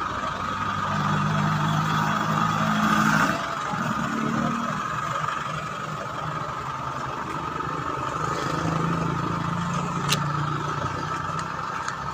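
Motor vehicle engines idling and running close by, a steady low hum that swells twice, with a constant higher drone over it.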